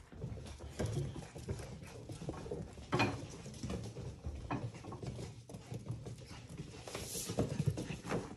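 Young Portidoodle puppies scampering and tussling on a padded floor mat: scattered paw taps and scuffles, with a sharper knock about three seconds in and a rustle of the fabric play tent near the end.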